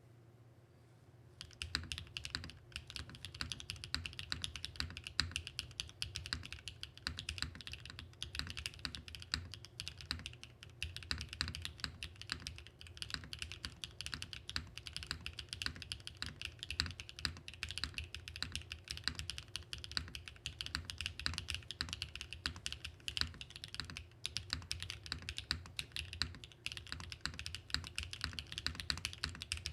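Continuous typing on a Mode65 (2024) mechanical keyboard with BSUN Bunny linear switches, a steady stream of key clacks starting about a second and a half in. The switches sound bright but keep a deep mid-tone, with a very quiet upstroke.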